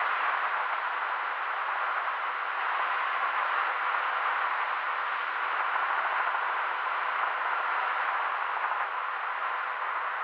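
Helicopter in flight, heard from inside as a steady, even rushing noise with no distinct beat.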